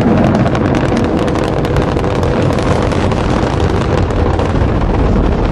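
Space Shuttle launch noise during the climb: the solid rocket boosters and main engines making a loud, steady low rumble with dense crackling.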